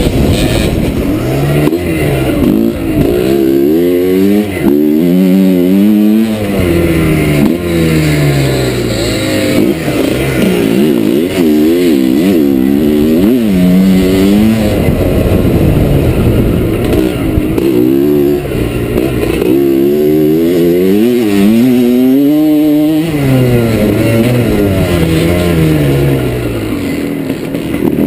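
1982 Frigerio-Puch 250's two-stroke single-cylinder engine, heard close from a camera on the bike, revving hard under load. Its pitch climbs and drops back over and over as the rider works the throttle and shifts gears over rough ground.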